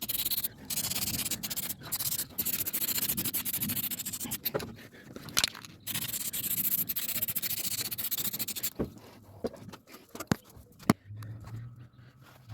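Hand scraping on the swamp cooler's parts in rapid repeated strokes for about nine seconds, with short pauses. Then it stops, leaving a few sharp clicks and knocks.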